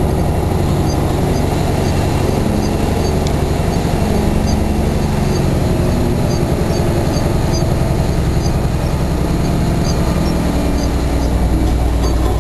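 Roll-off truck's diesel engine running steadily, its pitch drifting and rising somewhat in the second half as it pulls away.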